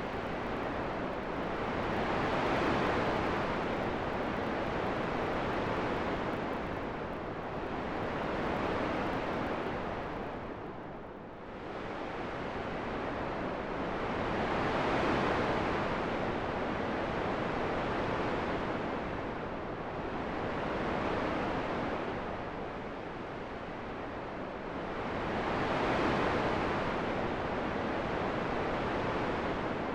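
Wind blowing in a steady rush that swells and eases in slow gusts every few seconds, with a deeper lull about eleven seconds in.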